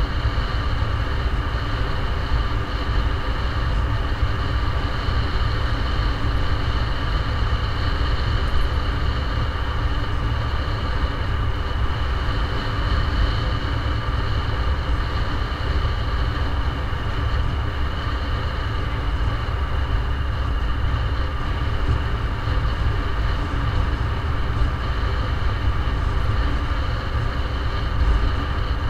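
Steady wind rumble and road noise from a vehicle moving along a paved road, picked up by an action camera riding on it, with a faint steady whine on top.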